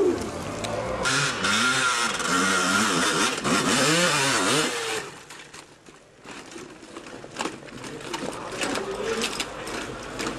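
Off-road motorcycle engine revving up and down in quick repeated blips, then dropping to a quieter stretch about halfway through.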